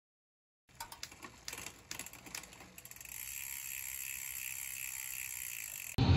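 Mechanical ratchet-and-gear clicking sound effect: irregular clicks for about two seconds, then a steady fast whirring tick. It cuts off suddenly near the end as outdoor street noise takes over.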